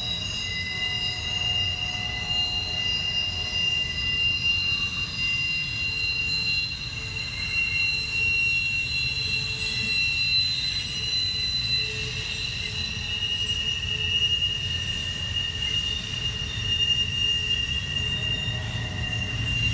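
Wheels of a double-stack container train squealing as the cars round a curve: several steady high-pitched squeals that swell and fade, over the low rumble of the rolling cars.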